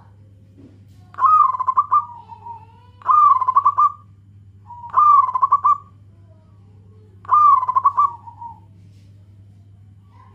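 Zebra dove (local perkutut) cooing: four short phrases about two seconds apart, each a fast trilled run of notes trailing off lower.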